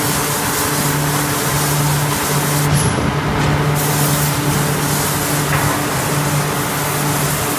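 Steady industrial noise of a 7000-ton mechanical hot forging press running: a constant loud hiss over a low machine hum that drops out and returns every second or so.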